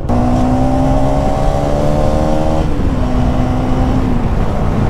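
Motorcycle engine running under way, its pitch climbing slowly for about two and a half seconds and then dropping back in two steps, with a steady rush of wind noise.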